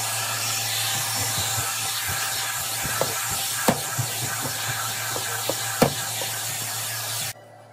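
Hot-air brush (hair dryer brush) blowing with a steady hiss and a low motor hum while it is worked through hair, with a few knocks from handling. It is switched off abruptly near the end.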